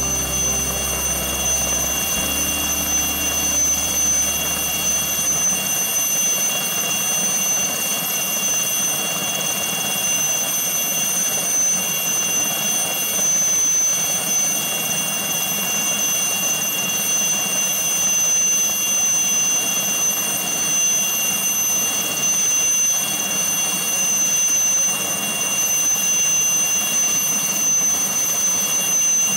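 Helicopter in flight: a steady rushing engine and rotor noise with a constant high-pitched whine.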